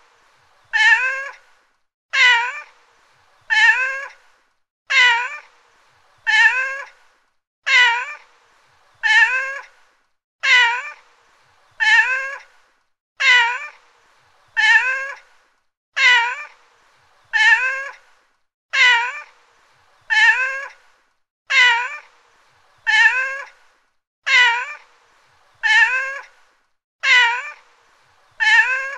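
Domestic cat meowing over and over: the same short, rising-then-falling meow repeats at a very even pace, a little under a second and a half apart, with silence between calls.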